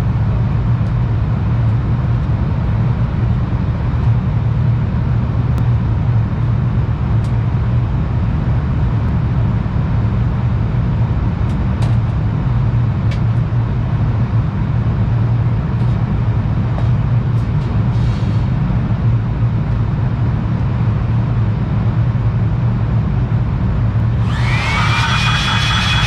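Handheld electric air blower running steadily, blowing dust out of an air-conditioning package unit. Near the end a higher whine joins in.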